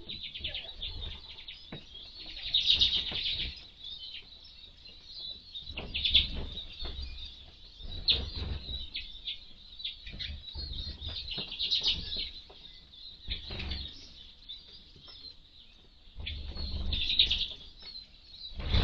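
A small flock of Eurasian siskins and common redpolls twittering with rapid high chirps, in bouts that swell and fade, mixed with wing flutters as birds fly to and from the feeder. The loudest twittering comes about three seconds in, around six seconds, and again near the end.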